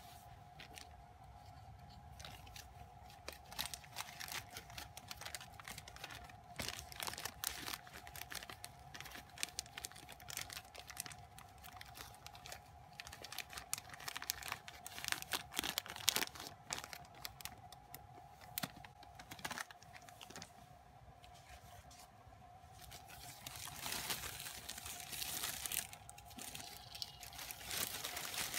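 Plastic packaging and a thin plastic bag crinkling and rustling as they are handled and unfolded, in irregular crackles. The crackling is busiest around the middle and again in the last few seconds.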